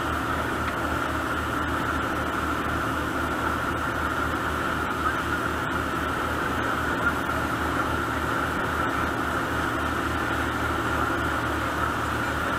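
Fishing boat's engine running steadily underway: a low, throbbing drone under the even rush of the churning wake.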